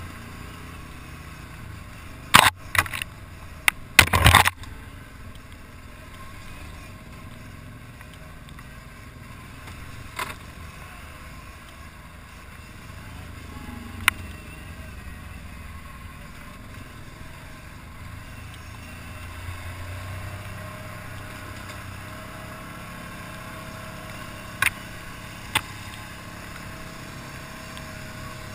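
ATV engine running steadily while riding a dirt trail, broken by sharp knocks and rattles, a cluster of them about two to four seconds in and a few single ones later.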